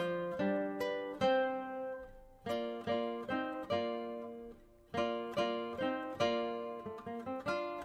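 Background music: a plucked string instrument playing an early-music piece in separate notes that ring and die away. The playing briefly falls away twice, around two seconds and four and a half seconds in.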